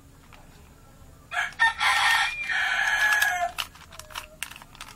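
A loud animal call of about two seconds, in two parts, starting about a second and a half in; then, near the end, the plastic layers of a Rubik's cube clicking as they are turned by hand.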